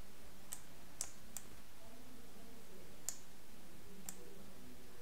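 Computer mouse clicking: five short, sharp single clicks at uneven intervals, three in the first second and a half and two more about three and four seconds in.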